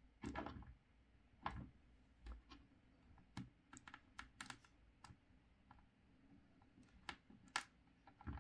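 Faint, irregular plastic clicks and taps, about a dozen in all, from a Star Wars Black Series Snowtrooper action figure being posed by hand: its leg joints shifting and its feet knocking on the tabletop.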